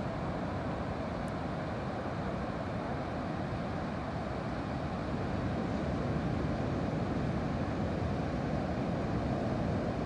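Steady rumbling roar of ocean waves breaking on the outer coral reef edge, growing a little louder about halfway through.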